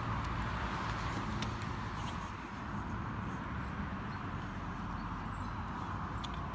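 Steady outdoor background noise: an even hiss with a low rumble beneath it and a few faint clicks.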